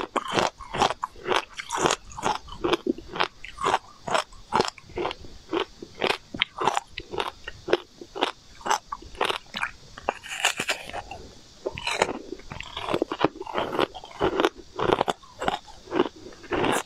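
A block of hard, frozen sweet ice being bitten and chewed close to the microphone: quick, crisp crunches, several a second, continue throughout.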